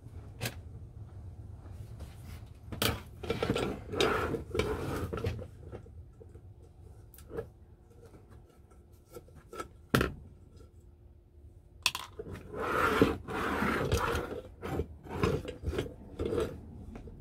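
Screwdriver working at the screws in the side of an old metal Salter milk scale's case: bursts of metal scraping and clicking, with a sharp click about ten seconds in.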